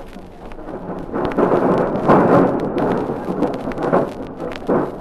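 Electric tram running, recorded aboard London tram 1768: an uneven noisy rumble that grows louder about a second and a half in and surges again near the end. It is heard through the crackle and clicks of a worn 1950 acetate disc.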